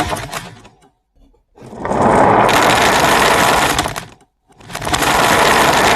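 Marbles rolling and clattering down a wooden HABA slope marble run: a dense rattle that fades out within the first second, then two long stretches of rattling separated by short silent breaks.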